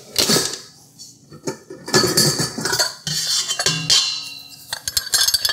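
Stainless steel mixer parts clanking and clinking as they are handled, a string of knocks, several of them leaving a short metallic ring.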